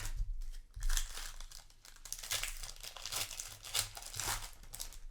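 Foil wrapper of a Magic: The Gathering set booster pack crinkling and being torn open, a run of irregular crackles and rustles.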